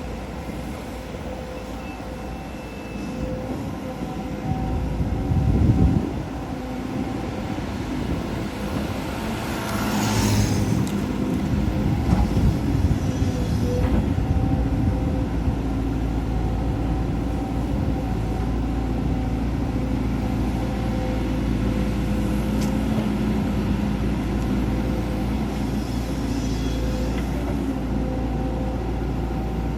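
Volvo EC210D hydraulic excavator working: its diesel engine runs steadily under a high, steady hydraulic whine. There is a loud low rumble about five seconds in, and about ten seconds in the machine loads up and stays louder.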